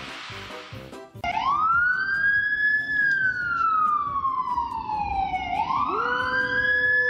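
About a second of hiss, then a siren wailing: its pitch rises quickly, then slides slowly down, twice over. A second, lower steady tone joins near the end.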